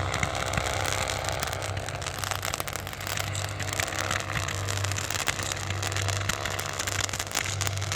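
RC helicopter running with a steady low hum while fireworks crackle densely and irregularly.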